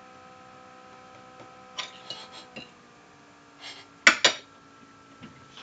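A few small clicks, then two sharp clinks in quick succession about four seconds in, over a steady electrical hum of several fixed tones.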